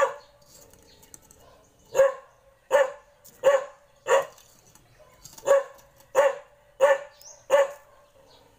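A dog barking over and over, short barks about 0.7 s apart, with a pause of about two seconds after the first bark.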